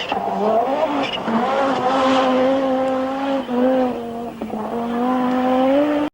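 Group B rally car engine revving hard under acceleration. Its pitch climbs in the first second, then holds high, with brief dips about three and a half and four and a half seconds in.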